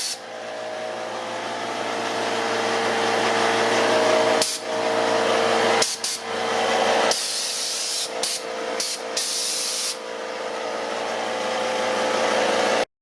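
Electric air compressor running, its motor and pump giving a steady hum with a whine over it, and hissing air that is loudest for a few seconds in the middle. The sound cuts off suddenly just before the end.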